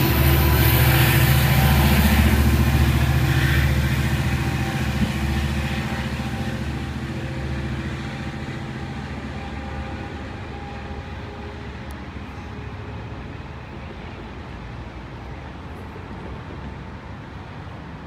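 Long Island Rail Road diesel train running away: the locomotive engine's drone and the wheel noise fade steadily as it recedes.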